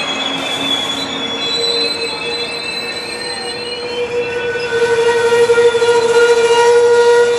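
Amtrak Superliner passenger cars rolling slowly past with a steady, high-pitched squeal from wheels and brakes as the train slows for its station stop. The squeal gets louder after about four and a half seconds.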